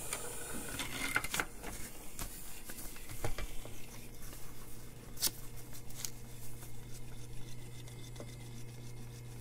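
Light clicks and knocks of a small plastic robot kit car being handled and set down on a paper sheet, mostly in the first half, over a steady low hum that grows a little stronger partway through.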